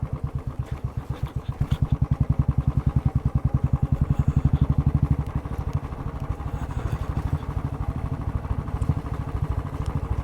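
Motorcycle engine running under way with a fast, even throb. It gets louder from about two seconds in, then eases off again a little past the middle.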